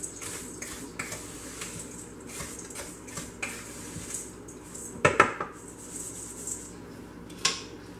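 Wooden spoon stirring and scraping pretzel crumbs around a stainless steel mixing bowl, with small knocks throughout. About five seconds in comes a louder ringing metallic clatter of the bowl, and another sharp knock near the end.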